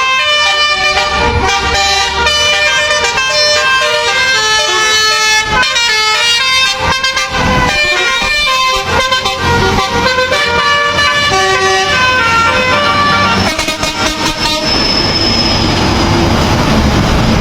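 A truck's basuri telolet musical horn playing a fast melody of short, stepped horn notes, which stops about three-quarters of the way through, leaving the noise of passing traffic.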